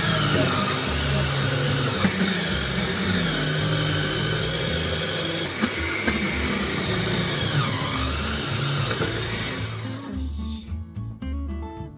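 Electric food processor running steadily as it grinds chunks of daikon radish into grated daikon. The motor stops about ten seconds in, and plucked acoustic guitar music is left.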